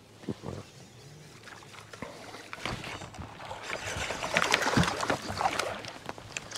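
A hooked bass thrashing and splashing at the surface beside the boat as it is brought in, the splashing building from about two seconds in and loudest near the end. A couple of thumps on the boat about half a second in.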